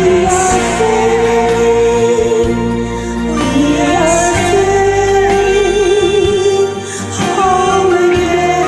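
Karaoke backing music of a slow ballad, with long held notes that waver slightly, sung or hummed over a steady accompaniment. The notes change about every three to four seconds.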